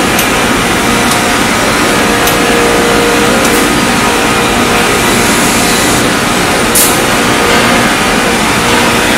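Steady loud running of a ceramic tile factory's roller conveyor line carrying unfired tiles, with a few short clicks now and then, the sharpest about seven seconds in.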